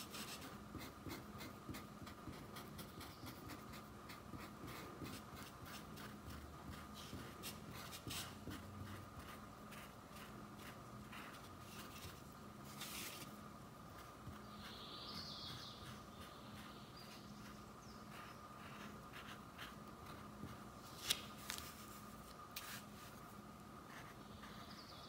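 Paintbrush bristles scrubbing black fabric paint into stretched cotton cloth: faint, repeated scratchy strokes, with a few sharper taps, over a steady low hum.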